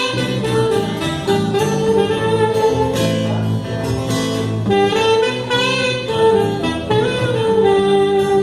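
Saxophone solo over acoustic guitar accompaniment: the sax plays a melody of held notes that step up and down while the guitar keeps strumming chords underneath.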